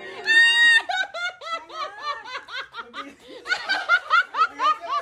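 A group of people laughing in quick repeated bursts, with one loud high-pitched squeal of laughter about half a second in.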